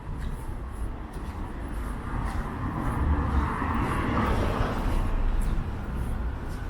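Street traffic: a vehicle passes, its noise swelling to a peak around the middle and fading away, over low rumbling wind on the microphone.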